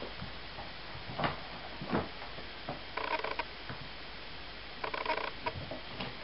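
Ocicat kittens playing on a carpeted cat tower: scattered soft knocks and bumps from their climbing and jumping. A few short, higher-pitched bursts come about three and five seconds in.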